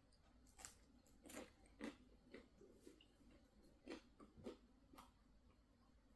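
Faint chewing of pizza: a string of soft, irregularly spaced mouth clicks.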